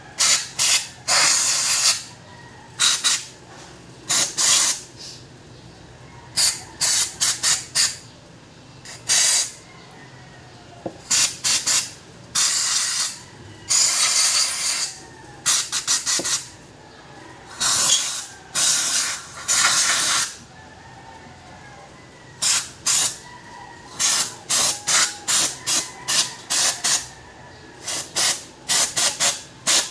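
Aerosol cleaner sprayed through a straw nozzle onto a throttle body to strip off carbon, hissing in many separate bursts. Some bursts are held for about a second; many are short puffs in quick runs.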